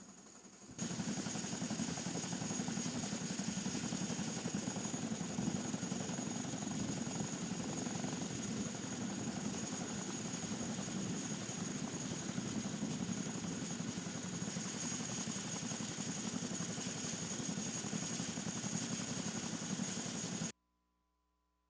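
Military helicopter running steadily: dense rotor noise with a fast flutter, a deep drone and a thin high turbine whine. It starts abruptly about a second in and cuts off suddenly near the end.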